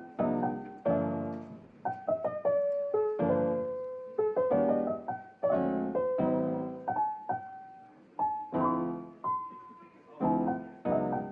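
Solo piano music: a gentle melody over chords, each note struck and left to fade.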